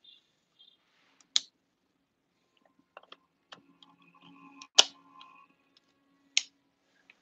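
A few sharp clicks and taps from kittens moving about in cardboard boxes. The loudest come about one and a half, five and six and a half seconds in, with smaller taps around three seconds.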